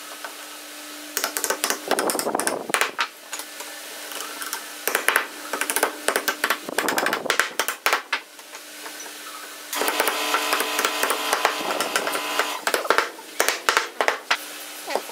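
Small hammer tapping thin wooden slats down into the notched slots of a wooden rack: scattered light taps at first, then a quick run of many taps about two thirds of the way in, with wood-on-wood knocking as the slats are handled into place.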